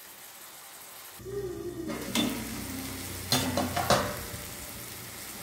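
Onion-tomato masala sizzling in oil in a steel kadhai while a spoon stirs and scrapes it, with a few sharp knocks of the spoon on the pan about two and three-and-a-half seconds in. The masala is frying down to the point where the oil separates.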